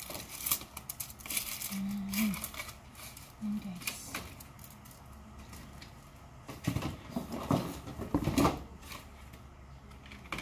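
Plastic clothes hangers clicking and clattering against each other as a bundle is handled and counted. A louder run of knocks comes about seven to eight and a half seconds in.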